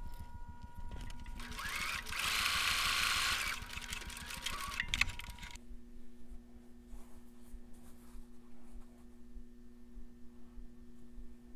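Bernina sewing machine with a twin needle sewing a knit hem, running evenly for about two seconds a little way in, then stopping. A quiet steady hum follows.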